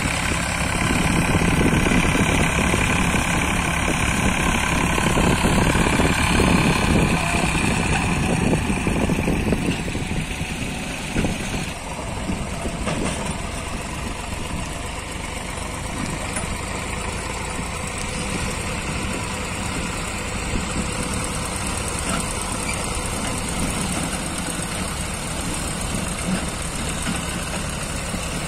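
Tractor diesel engine running under load while hauling a fully loaded trolley through loose sand. It is louder for the first dozen seconds, then settles to a lower, steadier drone.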